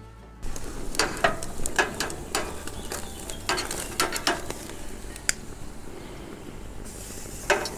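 Beef rump steak sizzling as it sears on a gas grill's grate over a hot ceramic infrared burner. Metal tongs click sharply against the steel grate several times as the steak is handled. The sizzle starts suddenly about half a second in.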